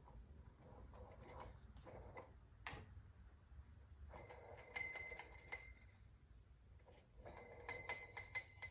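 Echo 590 chainsaw clutch drum being spun by hand on its freshly greased needle bearing, in two bursts of rapid metallic clicking with a high bell-like ring, after a few light knocks as the parts are handled. The grit in the bearing is heard in the clicking.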